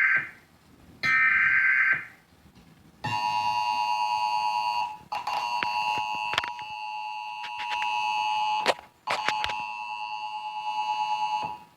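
Emergency Alert System SAME header: the last two of three harsh, screechy data bursts, each about a second long, then after a short gap the steady two-tone EAS attention signal, which sounds for about eight seconds with two brief dropouts and a few clicks.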